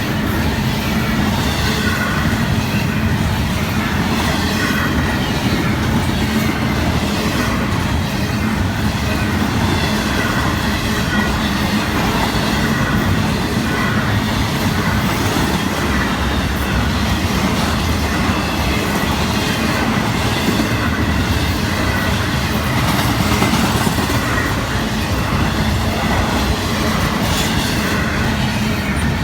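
A long Florida East Coast Railway intermodal freight train rolling past at speed: a steady, loud rumble of wagon wheels on the rails, with a faint high squeal running through it.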